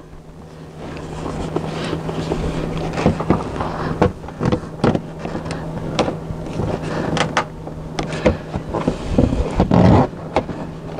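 Screwdriver prying at a clipped-in plastic interior trim panel in a Tesla Model S's rear seat area, giving scattered clicks, knocks and scrapes as the clips refuse to pop loose. A steady low hum runs underneath.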